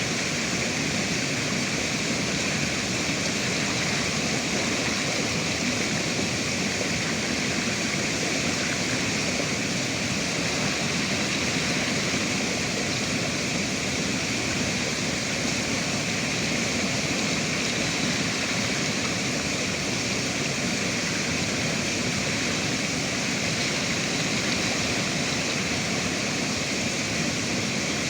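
River water rushing, a steady, even sound that does not change.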